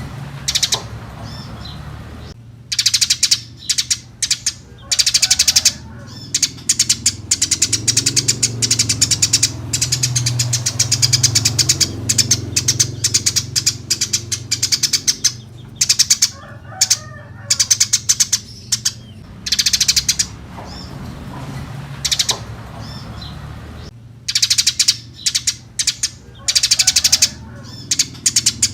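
Eurasian tree sparrows chirping in fast, dense chattering bouts of a few seconds each, broken by short pauses, over a steady low hum.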